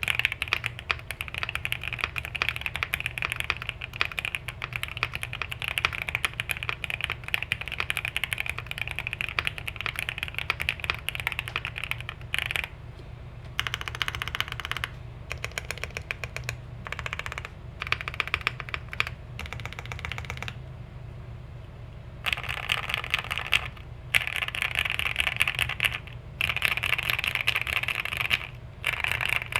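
QK65 mechanical keyboard typed on fast, with lubed and filmed Gateron North Pole linear switches on an FR4 plate, all foams installed, under GMK-clone doubleshot keycaps: a dense clatter of key presses that sounds like popping bubble wrap. Steady typing for about the first twelve seconds, then shorter bursts with pauses, and a long run of fast typing near the end.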